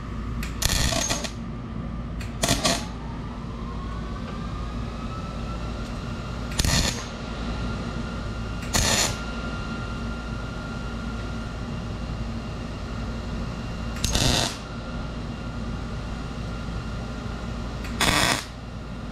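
MIG welder laying six short tack welds on a stainless steel exhaust pipe, each a brief crackling burst of under a second, spaced a few seconds apart, over a steady low shop hum.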